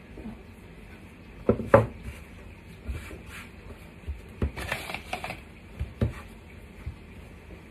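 Light knocks and taps of plastic cake-decorating tools, a rolling pin and a snowflake plunger cutter, being handled and set down on a silicone baking mat, with a short rubbing rustle about halfway through. The loudest is a quick double knock just under two seconds in.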